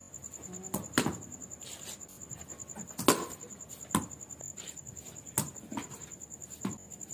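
Cricket ball impacts in an indoor practice net: about six sharp knocks at irregular spacing, over a faint, steady, high-pitched whine that pulses rapidly.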